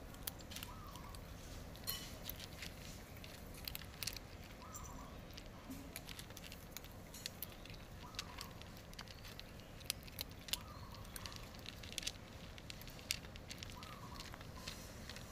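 Cats crunching dry kibble: irregular sharp crunches and clicks as they chew, with a few louder crunches now and then.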